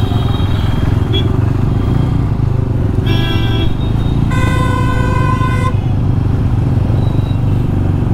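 Motorcycle engine running steadily while riding, under a constant low rumble. A vehicle horn honks twice: a short toot about three seconds in, then a longer, steady honk of just over a second.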